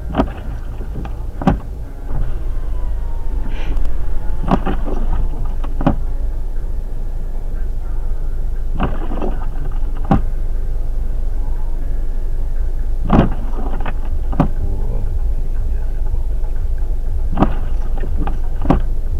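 Inside a car cabin: a steady low engine rumble, with windshield wipers on an intermittent setting giving a pair of short knocks about every four seconds as the blades sweep across and back.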